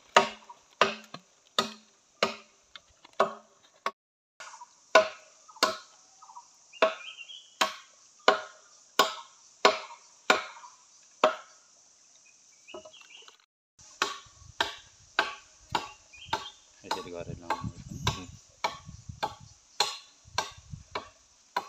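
Steady rhythmic chopping: a blade striking wood about one and a half times a second, with a short pause past the middle before the strokes pick up again a little faster. A constant high hiss runs underneath.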